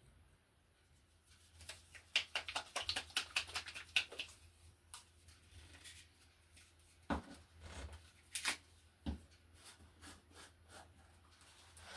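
Small clicks and light knocks of hands handling small craft objects on a work table: a quick run of clicks for two or three seconds, then a few separate knocks.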